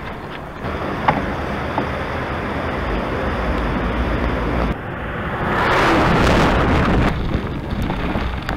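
Wind rushing over the microphone outdoors. A louder rush swells up and fades away about six seconds in.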